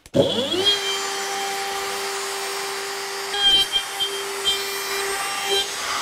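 Makita trim router switched on, spinning up to a steady high whine within about half a second. It then cuts a groove in wood, and its tone wavers and roughens under the load from about halfway through.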